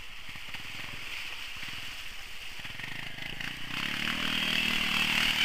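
Quad bike engine revving hard as it pulls through mud, getting louder over the last second and a half.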